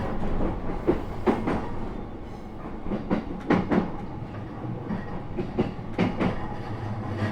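Cabin running sound of a JR East E233-3000 series electric train: wheels clicking over rail joints in groups of about three every two and a half seconds, over a steady low rumble.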